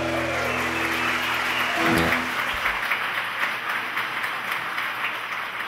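Audience applauding at the end of a song, coming in over the last ringing of the acoustic guitars' final chord. A brief low thud about two seconds in, and the applause tapers off toward the end.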